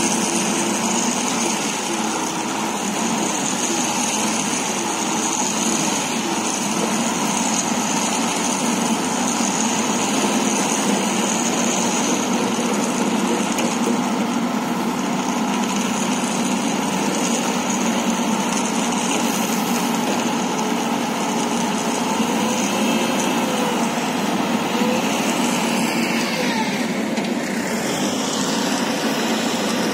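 Excavator-mounted pile driver working a pile: diesel engine and hydraulic driving head running steadily as one continuous mechanical noise, with no separate hammer blows. The sound changes a little near the end.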